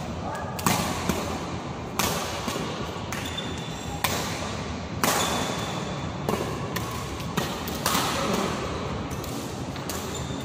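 Badminton rackets striking a shuttlecock in a doubles rally: sharp, irregular hits about once a second, sometimes two in quick succession, each echoing briefly in a large hall.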